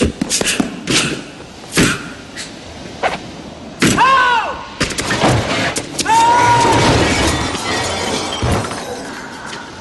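Breaking glass and a run of sharp knocks and stamps as a car and windows are smashed, a metal trash can crashing through a window near the end. Two high-pitched cries ring out, one about four seconds in and a longer one about six seconds in.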